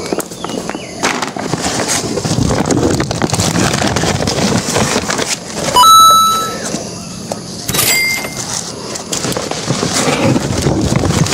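Woven plastic fertiliser sack rustling and crackling as durians are handled and put into it. About six seconds in comes a sudden loud sound with a brief ringing tone that fades over about a second, and a shorter ringing sound near the end of the second third.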